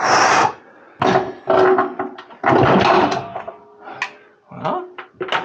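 Irregular bumps, scrapes and rustling as a wall-mounted water-heater tank is handled and shifted against the wall of a narrow closet.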